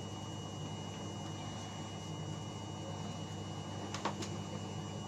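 Indesit washing machine running through its wash cycle: a steady motor hum, with two short sharp clicks about four seconds in.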